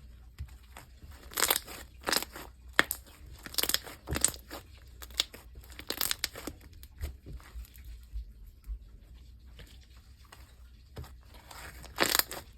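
Fluffy homemade slime being squeezed and stretched by hand, giving irregular crackly pops.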